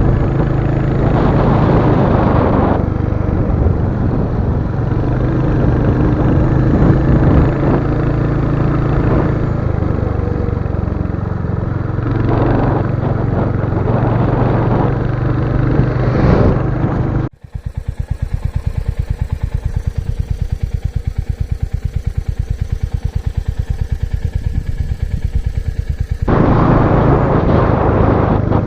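Royal Enfield Hunter 350's single-cylinder engine running while riding. About two-thirds of the way in it cuts to the engine idling with an even, rapid beat of about eleven pulses a second. Near the end it cuts back to riding.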